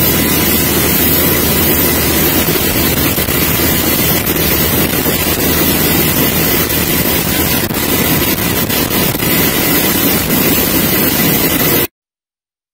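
UH-60 Black Hawk helicopter running in flight: loud, steady rotor and engine noise with wind rushing over the microphone and a constant high whine. It cuts off suddenly near the end.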